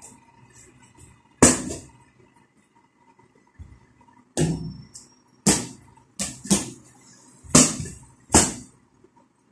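A small ball thudding off hard surfaces: about seven sharp, irregularly spaced knocks as it is thrown and bounces about a small room.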